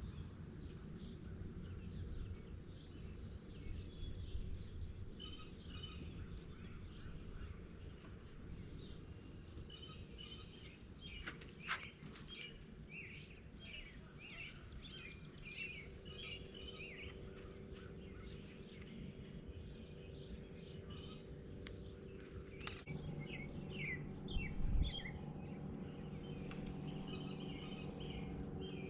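Small birds chirping over a steady low background rumble, with a sharp click near the middle. About two-thirds of the way through, a steady low mechanical hum starts, with a few knocks soon after.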